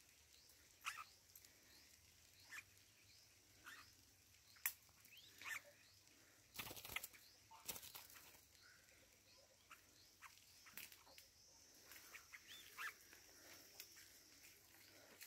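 Bulbuls at a trap cage giving short, sharp rising chirps every second or two, with a brief flurry of wing flapping about seven seconds in.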